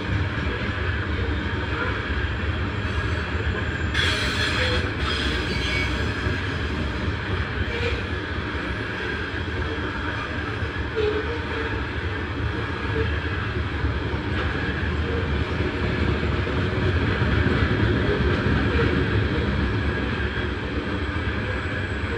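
Freight train of loaded Norfolk Southern open-top hopper cars rolling past close by. The steel wheels rumble steadily over the rails, with a brief harsher burst of noise about four seconds in.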